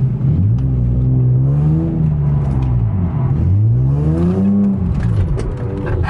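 Nissan 350Z's 3.5-litre V6 engine heard from inside the cabin while the car is driven hard in a skid. The revs climb, fall away, climb higher again about halfway through, then drop near the end.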